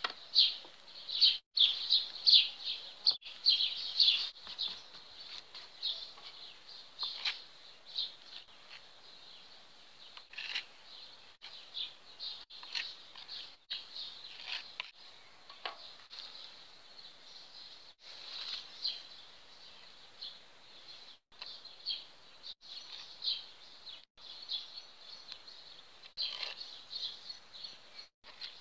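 Birds chirping steadily in the background, thickest in the first few seconds. A few soft scrapes from a metal putty knife spreading adhesive paste come in now and then.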